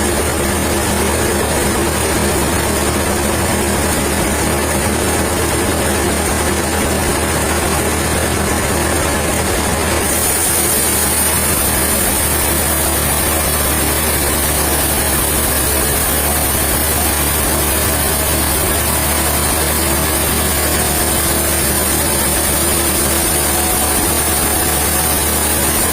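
A heavy engine running steadily with a deep hum, and a high hiss that grows louder about ten seconds in.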